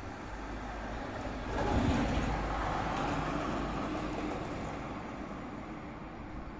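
A vehicle passing along the street below over steady traffic noise: its sound swells suddenly about a second and a half in, then slowly fades away.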